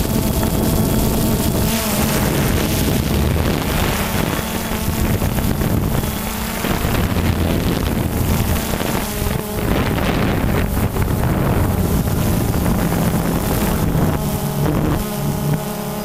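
DJI Phantom 2 quadcopter's electric motors and propellers humming steadily, picked up by the GoPro slung beneath it, with wind buffeting the microphone. The hum's tone shifts about fifteen seconds in.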